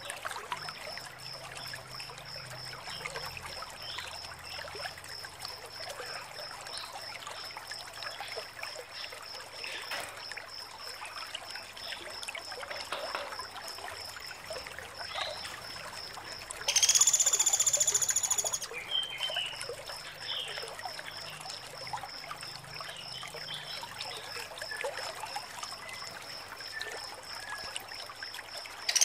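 Female pelatuk sampit woodpecker calling: a high, even run of quick notes, about five a second, is held throughout. About 17 s in, a loud harsh buzzing call lasts about a second and a half.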